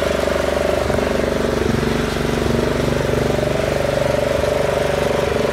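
Small engine of a riding lawn mower running steadily at an even speed as the mower is driven along the street.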